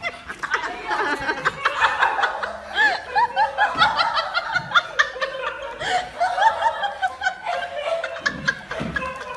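People laughing, a long run of quick repeated laughs with several voices overlapping.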